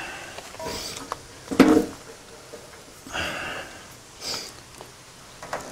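Tractor side panel being fitted over its mounting studs and pressed into place: a few short scrapes and rustles, with a sharp clunk about one and a half seconds in.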